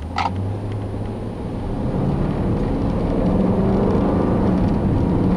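2012 Dodge Durango R/T's 5.7-litre Hemi V8 accelerating hard, heard from inside the cabin. The engine note grows louder over the first two or three seconds and climbs in pitch, then holds strong.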